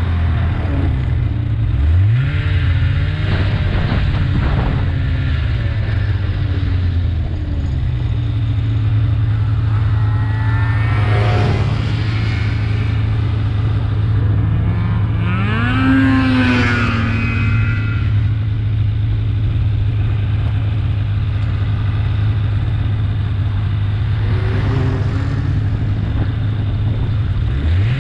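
Snowmobile engine running steadily at trail speed, its pitch rising as the throttle opens about two seconds in and again at the end, with a few higher wavering whines in between.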